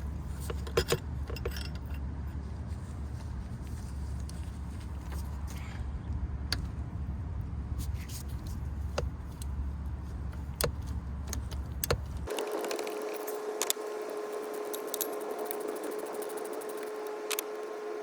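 Scattered metallic clinks of a socket wrench and tools working the 16 mm pulley bolt, over a steady low hum. About twelve seconds in, the low hum cuts off and a steadier, higher-pitched hum takes over, with the clinks going on.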